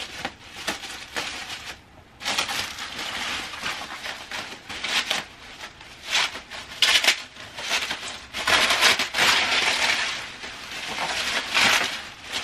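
Plastic sheeting and bubble wrap crinkling and rustling in irregular bursts as they are pulled and unwound off a canvas.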